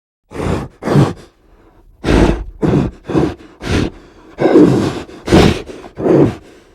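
Monster sound effects for an Anguirus-like kaiju: a series of about nine or ten short, harsh grunts and roars. Two come singly in the first second, then a quicker run follows from about two seconds in.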